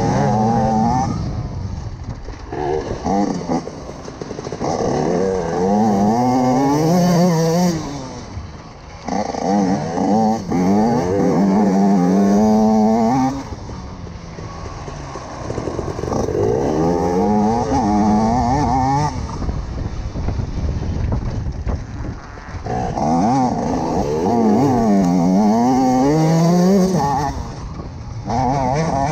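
TM EN 144 two-stroke enduro motorcycle engine revving hard and easing off over and over, the pitch climbing and dropping every second or two as the throttle is worked.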